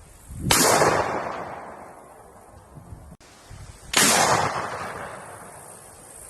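Two separate firearm gunshots, one about half a second in and one about four seconds in, each a single sharp report followed by an echoing decay of a second or more.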